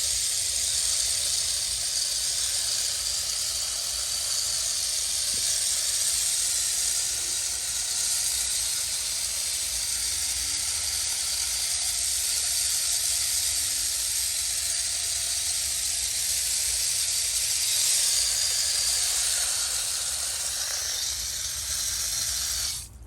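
Water spraying steadily from a garden hose nozzle onto potted succulents, a continuous hiss that cuts off suddenly just before the end as the spray is shut off.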